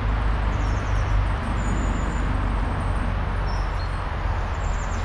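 A steady low rumble under an even hiss, with no distinct events.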